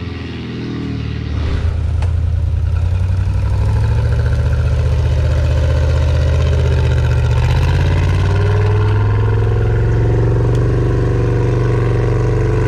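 Off-road 4x4's engine working under load. Its revs rise about a second and a half in and then hold high and fairly steady.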